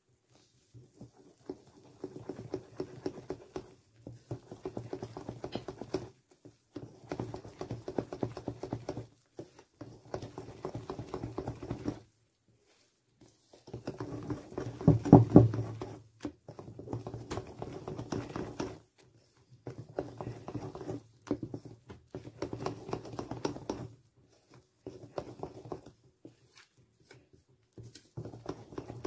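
Wire hand whisk beating cake batter in a small bowl: a rapid clatter of the wires against the bowl in stretches of one to three seconds, with short pauses between them. It is loudest about halfway through.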